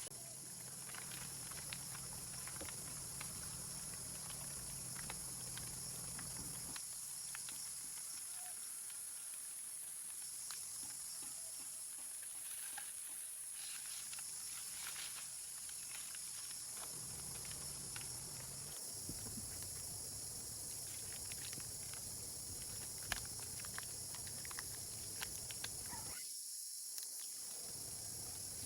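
Steady high hiss of outdoor ambience with many scattered light ticks and taps; a faint low hum comes and goes.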